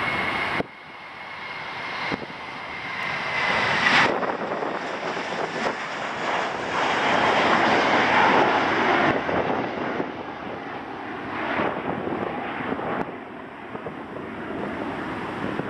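Airbus A321 jet engines at takeoff power as the airliner lifts off and climbs out: a steady, loud engine rush with a high whine that fades after about four seconds. The sound is loudest in the middle, then eases off as the aircraft draws away.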